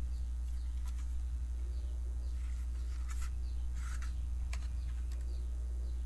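Steady low electrical hum, with faint crinkling and a few light clicks as gloved hands pick up a RAM module from its bag.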